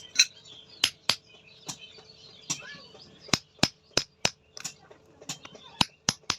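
Hand hammer striking metal in about a dozen sharp, unevenly spaced blows, coming faster in the middle. Birds chirp faintly in the background.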